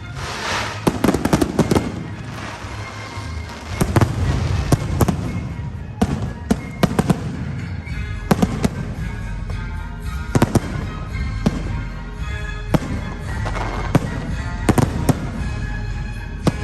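Fireworks display: aerial shells bursting in a steady, irregular series of sharp bangs, some in quick clusters, with crackling in between.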